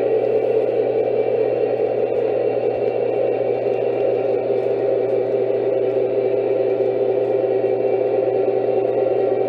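Lionel model train freight cars rolling steadily along the track: a constant rumble of metal wheels on rail with a steady low hum underneath.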